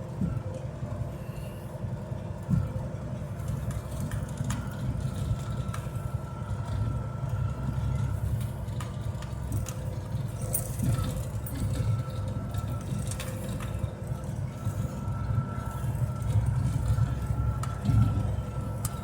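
Case IH 8120 combine running steadily as it travels, heard from inside the cab, with a faint high whine that comes and goes and a few knocks and rattles.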